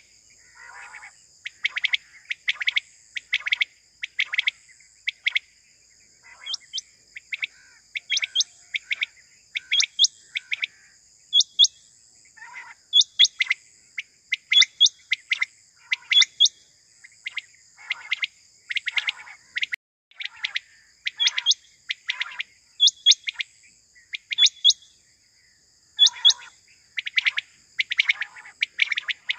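Quail (batair) calling over and over, short sharp notes in quick clusters about every second, over a faint steady high whine.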